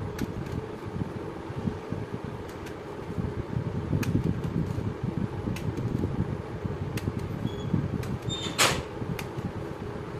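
Small knife slicing rounds off a whole eggplant held in the hand, with scattered soft clicks as the blade cuts through and a sharper click near the end, over continuous low rumbling background noise.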